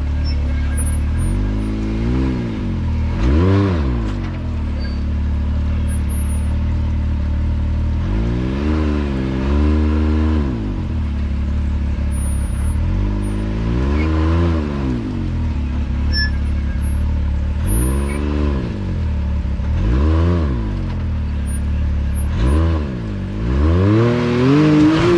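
Can-Am Maverick X3 turbo side-by-side's three-cylinder engine revving again and again, each rev rising and falling back, as the machine works its way up a rocky waterfall ledge under load.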